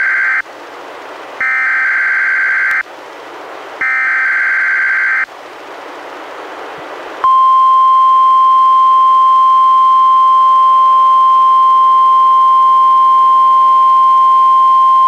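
NOAA Weather Radio Emergency Alert System test broadcast as received by a weather radio. The tail of one SAME header data burst is followed by two more harsh, warbling electronic bursts of about a second and a half each, with radio hiss between them. About seven seconds in, the steady single-pitched 1050 Hz warning alarm tone begins and holds.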